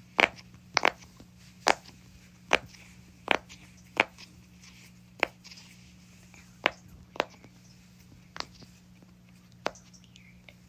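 Silicone pop-it fidget toy being pressed on its loud side, bubbles popping one at a time: about a dozen sharp pops, roughly one a second and unevenly spaced.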